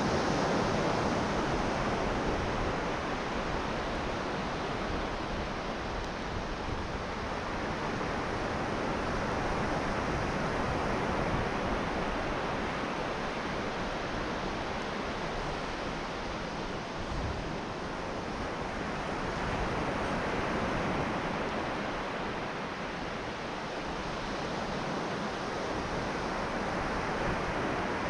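North Sea waves breaking and washing onto a beach, with some wind, heard as a steady rush that swells and eases every several seconds.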